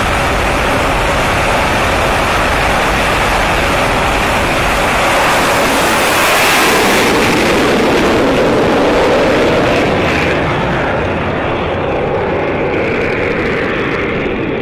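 Dassault Super Étendard's Atar turbojet running at full power through a catapult launch, loudest about halfway through, then fading as the jet climbs away.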